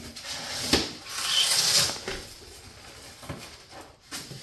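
Cardboard shipping box being opened and handled: a sharp knock under a second in, then a loud scraping rustle of cardboard and packing, then quieter rustling.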